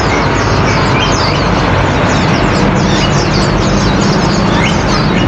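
Many caged songbirds chirping and calling at once: dozens of short, quick, high chirps over a loud, steady background noise with a low hum.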